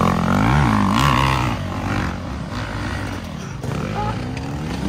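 Dirt bike engines revving as the bikes ride a dirt trail, pitch swinging up and down with the throttle, loudest in the first second and a half and then running lower and steadier.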